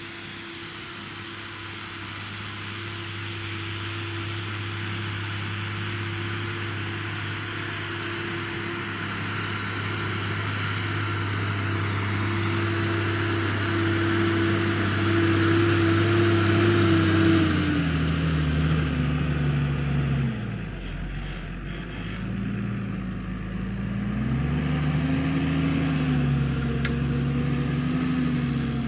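New Holland TM140 tractor's six-cylinder diesel engine working under load with a Kuhn four-furrow plough, growing steadily louder as it comes closer. About seventeen seconds in the revs drop sharply, then pick up again around twenty-four seconds and hold steady.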